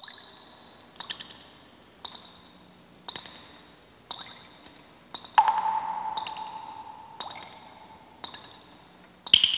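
Water-drop sounds, a sharp ringing drip about once a second in an even rhythm, with a held mid-pitched tone rising under them about halfway through and fading after a few seconds.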